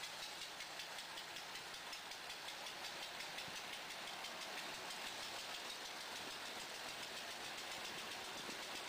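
Trenitalia passenger train rolling slowly past: a steady hiss of wheels on rail with a fast, even ticking running through it.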